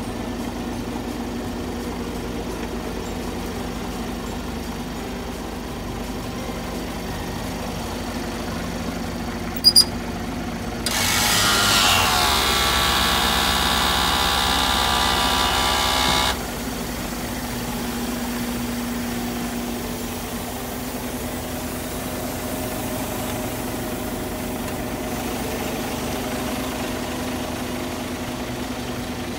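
Isuzu Giga heavy truck's diesel engine idling steadily. A pair of sharp clicks comes about ten seconds in, then a louder noise cuts in abruptly and stops just as suddenly some five seconds later.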